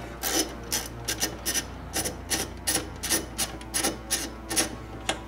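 Socket ratchet clicking in short repeated swings, about two or three strokes a second, as the 14 mm strut top nut is undone with a long socket.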